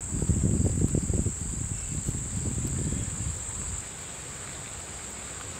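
Insects chirring in a steady, unbroken high trill. A low, uneven rumble is loudest in the first couple of seconds and stops about four seconds in.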